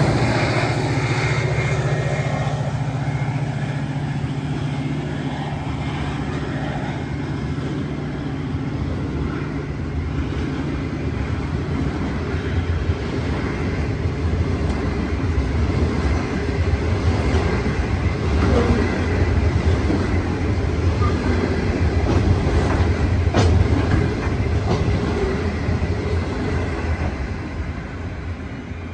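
Pacific National 81 class diesel-electric locomotive running past with a low, steady engine note that fades within the first dozen seconds. A long rake of covered hopper wagons follows, rolling by with a continuous rumble and occasional wheel clacks, dying away near the end as the train's tail moves off.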